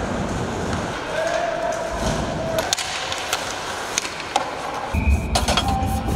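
Ice hockey play: skate blades scraping and carving the ice, with sharp clacks of sticks and puck scattered through, and a few players' calls.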